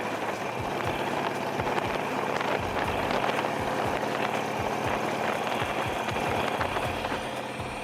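Motorcycle engine running steadily under way, mixed with wind rush.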